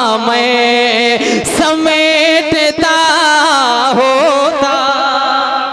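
A young man's solo voice singing a naat into a microphone, drawing out long notes with wavering ornaments between the words. A new phrase begins about a second and a half in.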